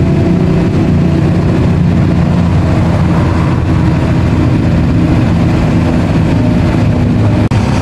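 Bus engine running steadily at road speed, heard from inside the driver's cab together with the drone of tyres and wind.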